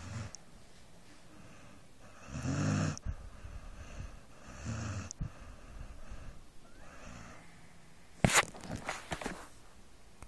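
A sleeping dog snoring: two drawn-out snores a couple of seconds apart, with a faint one at the start. Near the end a sharp click, the loudest sound, is followed by a few softer clicks.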